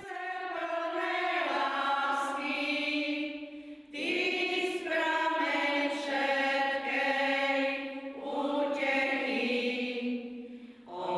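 Women's folk choir singing together in three long held phrases, with short breaths between them about four and eight seconds in.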